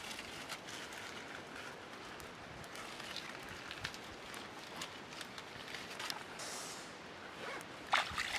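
Faint trickle of a shallow stream with scattered small clicks and rustles as catfish are handled and threaded onto thin sticks on a rock. Near the end, hands splash in the water in a short burst of louder sounds.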